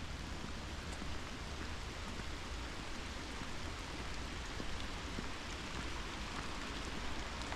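Steady cold rain falling, an even hiss with no separate drops or steps standing out.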